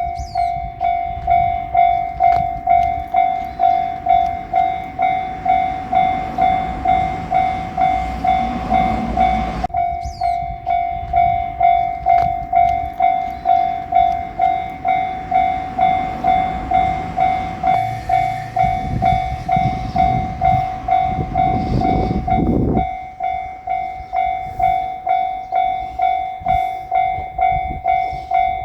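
Japanese level-crossing warning bell ringing its electronic 'kan-kan' tone steadily, about two and a half strokes a second. A JR Shikoku diesel railcar rumbles through the crossing in the second half, and its noise stops suddenly a little after two-thirds of the way in.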